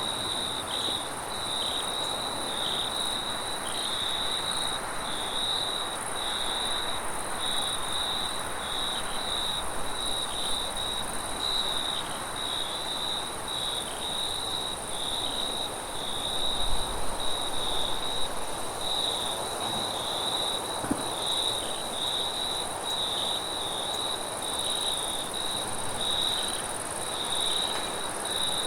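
Crickets chirping in a steady rhythm, about one and a half chirps a second, over a continuous high-pitched trill, with wind rushing behind them and a low gust about two-thirds of the way through.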